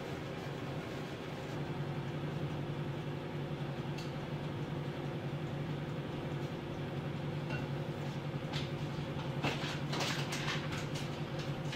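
Steady low electrical or motor hum, with scattered light clinks and scrapes of a utensil in a bowl that bunch together about nine seconds in.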